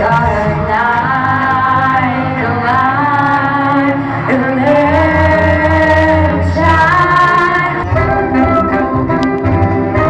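Music: a woman singing long held notes over an instrumental backing.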